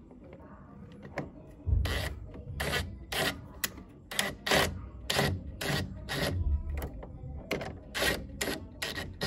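Repeated short rubbing and scraping noises, roughly two a second with a couple of dull knocks, as a black rubber hose is worked onto a fitting inside a gas furnace. They start a little under two seconds in.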